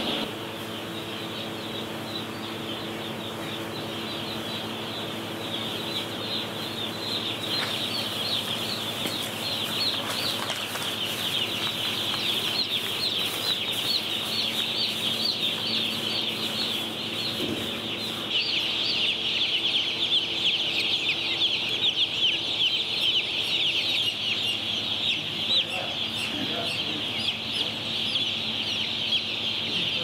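Day-old broiler chicks peeping in a dense chorus of many overlapping high-pitched cheeps, which grows louder a little over halfway through. A steady low hum runs underneath through the first half.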